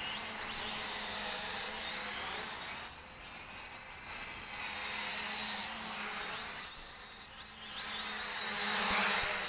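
Small toy quadcopter's four motors and propellers whining in fast forward flight, the buzz swelling and fading twice as it moves nearer and farther, loudest near the end.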